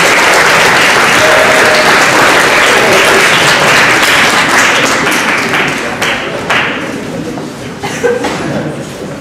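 Audience applauding, dense and steady at first, then thinning out after about six seconds into scattered single claps. A sharp thump sounds about eight seconds in.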